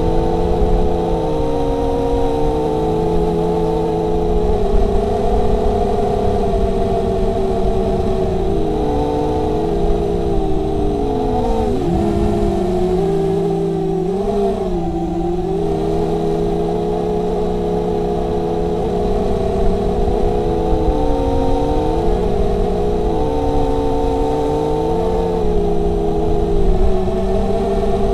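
Brushless motors and 5-inch propellers of a 250-size FPV racing quadcopter, heard from its onboard camera: a loud buzzing whine of several close pitches that rise and fall together with the throttle. A sharp drop and climb in pitch comes about twelve seconds in, over a low rumble.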